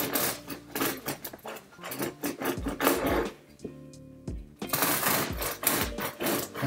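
A serrated bread knife saws through crisp toasted ciabatta crust on a wooden board. There are two bursts of quick rasping strokes: one at the start and one a little after halfway. Background music with a steady beat plays throughout.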